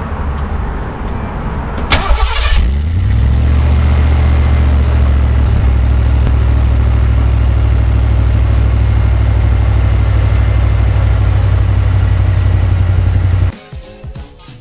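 Ford Bronco engine starting about two seconds in, then idling steadily as a loud, deep rumble through a Flowmaster 40 muffler and 3-inch cat-back pipe with a turn-down outlet. The sound cuts off suddenly near the end.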